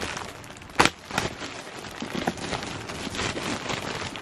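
Clear plastic poly bag crinkling as it is pulled open, a run of irregular crackles with one sharp loud snap a little under a second in.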